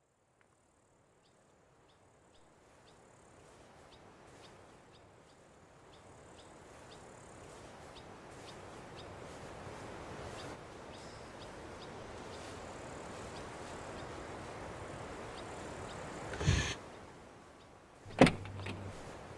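A soft noise bed slowly swelling, with faint regular high ticks, then a loud hit near the end. About a second later comes a sharp click as a car's door handle is pulled open.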